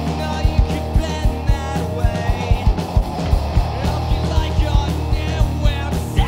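Alternative rock band recording playing: electric guitars, bass and drums, with drum hits keeping a steady beat under a dense, loud wall of sound.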